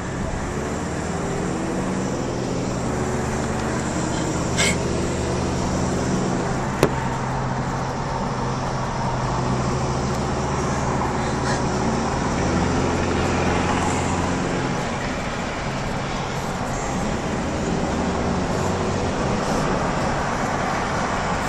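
Steady road and engine noise of a car travelling at freeway speed, heard from inside the car, with a low engine hum. A short click sounds about five seconds in and another about seven seconds in.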